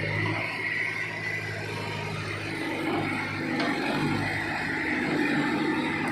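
Diesel engine of a Mahindra Arjun Novo 605 DI tractor running steadily, working a backhoe loader.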